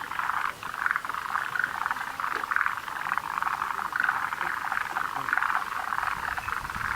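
Dense chorus of forest green tree frogs and montane brown frogs, many overlapping calls running together without a break.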